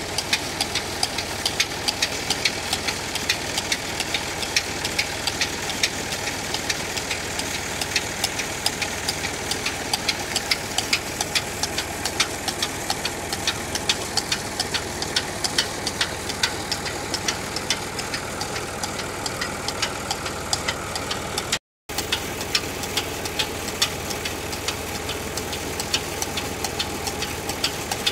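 Tractor engine running steadily under load while it drives an irrigation water pump through a PTO shaft and belt pulley, with a constant patter of sharp ticks or knocks, several a second.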